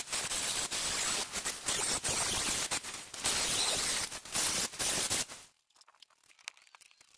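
Corded angle grinder working the steel edge of a door cut from a propane tank, in a run of passes broken by short dips as the disc lifts off the metal. It stops about five and a half seconds in, and near silence follows.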